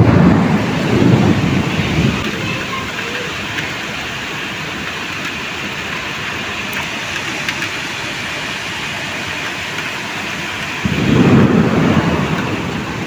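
Heavy rain falling with a steady, dense hiss. Low rumbles swell up at the start and again near the end.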